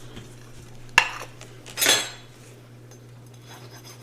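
A utensil clinking against a plate: a sharp click about a second in, then a louder, ringing clink and scrape about a second later.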